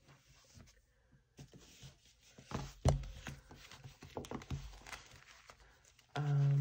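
A binder being handled on a wooden table: a couple of knocks about two and a half seconds in, then soft clicks and rustling as its strap is unfastened and the cover is opened.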